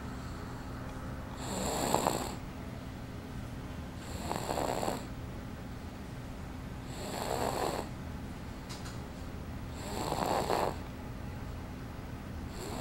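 A baby snoring in a slow, regular rhythm: four rasping snores, one every two and a half to three seconds, each lasting under a second.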